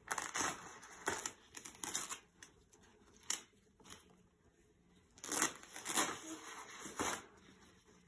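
Autoclave tape being peeled off a folded blue sterilization wrap, heard as a series of short tearing and crinkling sounds, with the wrap rustling as it is handled.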